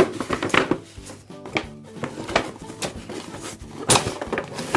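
Light background music with a steady tune, over short knocks, taps and scrapes of a cardboard toy box with a clear plastic window being gripped and turned by hand; the sharpest knocks come near the start and about four seconds in.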